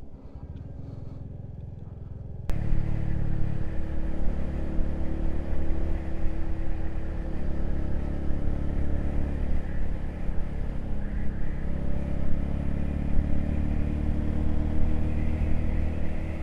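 A low engine rumble that cuts abruptly, about two and a half seconds in, to a motorcycle running along the road: a steady engine note with wind and road noise.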